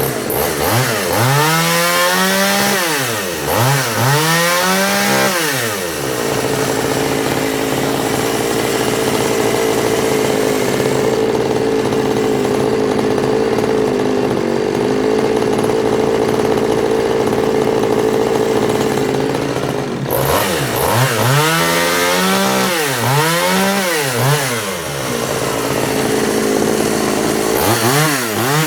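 Efco 134 top-handle two-stroke chainsaw revved up and down several times, then held at steady high revs for about fourteen seconds while cutting wood, then revved up and down again. It has just been retuned with a screwdriver after leaning out in the cut.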